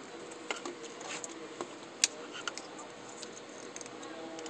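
Small clicks and taps of fingers fitting the display ribbon cable's connector into the socket on the back of a laptop LCD panel, with one sharper click about two seconds in.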